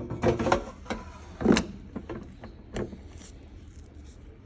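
A few knocks and clatters of an air fryer basket and its contents being handled: a quick cluster right at the start, the loudest knock about a second and a half in, and another near three seconds.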